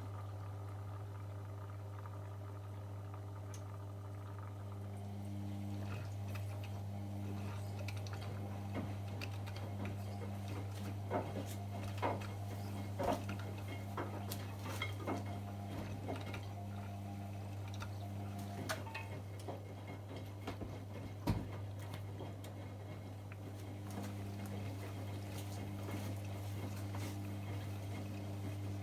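AEG Öko-Lavamat 73749 Exclusiv front-loading washing machine early in a 95 °C boil wash: water running and sloshing in the drum over a steady low hum. A motor tone comes in about five seconds in, stops for a few seconds near the end and starts again. Scattered clicks and knocks sound in the middle.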